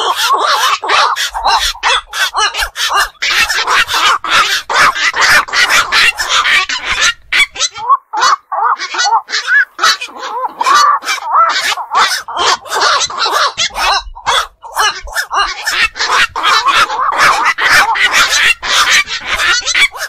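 Black-crowned night herons calling: a dense, loud run of rapid croaking calls from several birds overlapping one another, with brief lulls about 8 and 14 seconds in.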